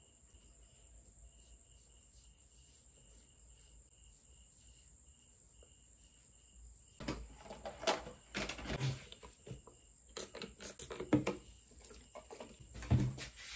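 Skincare bottles and small items being handled and set down on a wooden desk: rustles and knocks, loudest about a second from the end, in the second half. Before that a cricket chirps faintly and evenly, about two to three chirps a second.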